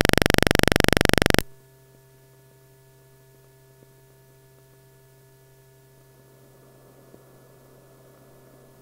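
Old 16 mm film optical soundtrack at the head of the reel: a loud, harsh buzz for about a second and a half that cuts off suddenly. After it comes a faint steady hum with light hiss and a few tiny clicks.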